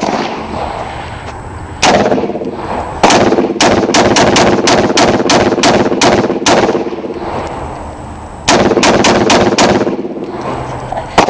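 AR-15 rifle fired semi-automatically in rapid strings. There are two single shots, then a run of about a dozen shots at roughly three a second, a short pause, a faster burst of about six, and a last single shot near the end.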